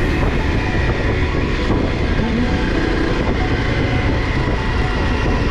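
Honda CRF 250 Rally motorcycle being ridden: a steady, unbroken drone of engine, wind and road noise.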